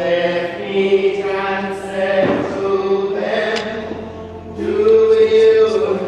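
Voices singing a slow, chant-like hymn, the melody moving in long held notes.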